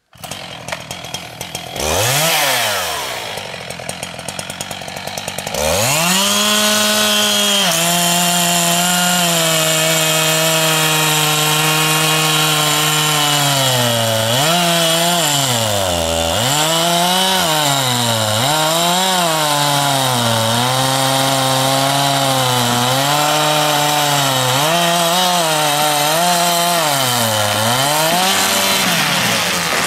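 Two-stroke chainsaw felling a beech: a short rev, a few seconds at a lower speed, then full throttle as the chain cuts into the trunk. In the second half the engine pitch dips and recovers again and again as the bar bogs in the wood, then drops off near the end.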